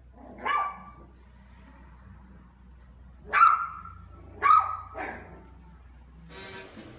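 Small puppy giving four short, high-pitched barks: one about half a second in, then three close together between about three and five seconds.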